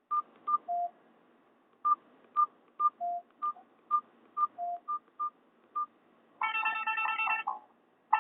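Nokia 216 mobile phone keypad beeps: about a dozen short, irregularly spaced beeps, mostly at one higher pitch with a few longer, lower ones, as keys are pressed. About six seconds in, a ringtone tune plays for about a second.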